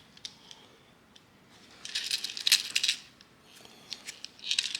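Small loose metal screws clinking and rattling as they are picked through, in two short flurries of clicks, about two seconds in and again near the end.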